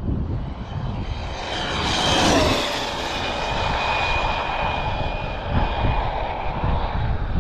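Traxxas X-Maxx RC monster truck with a Castle XLX2 brushless motor on 8S, passing at top speed. Its high electric whine rises as it approaches, is loudest about two seconds in, then drops in pitch and fades as it speeds away. Wind buffets the microphone throughout.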